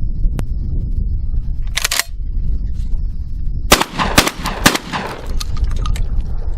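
A 12-gauge semi-automatic shotgun (H&R 1871 Excell, 18.5-inch barrel) firing, with three shots in quick succession about half a second apart past the middle and single sharp reports earlier. A steady low rumble lies underneath.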